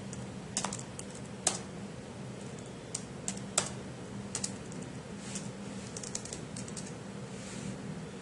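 Computer keyboard being typed on: irregular single key presses and short runs of taps, the sharpest about a second and a half and three and a half seconds in, over a low steady hum.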